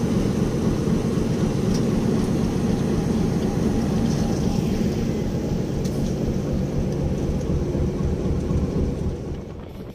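Diesel locomotive engine running steadily as the train pulls away, a continuous low rumble. It drops off shortly before the end.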